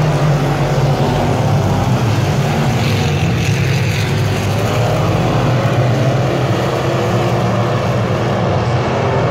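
Dirt-track stock cars racing around the oval, several engines running together in a steady low drone.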